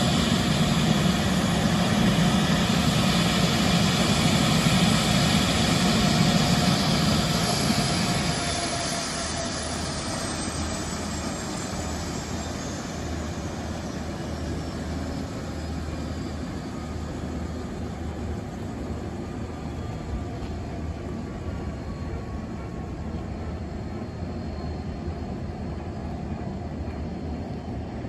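Sikorsky S-76C's twin Turbomeca Arriel 2S2 turboshaft engines winding down at shutdown. A high turbine whine falls steadily in pitch, and the loud running noise drops off about eight seconds in, leaving a lower rumble as the rotors coast.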